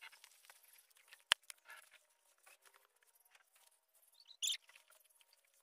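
Dry straw and fodder stalks rustling and crackling faintly as they are gathered by hand, in many small irregular clicks. A single sharp click comes a little over a second in, and a brief louder rustle comes about three-quarters of the way through.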